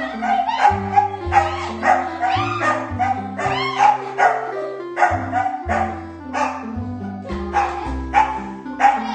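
Background music with a steady beat and a bass line stepping between held notes.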